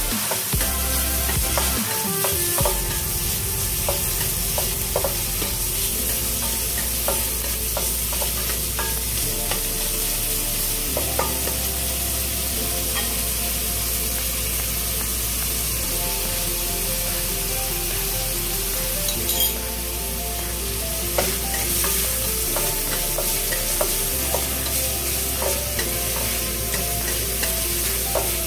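Diced bacon with shallot and garlic sizzling in a hot stainless-steel wok, stirred now and then with a spatula that scrapes and taps against the pan, over background music.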